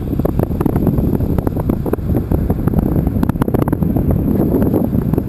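Wind buffeting the microphone on an open beach, a loud, steady, fluttering rumble, with a brief run of faint ticks a little past halfway through.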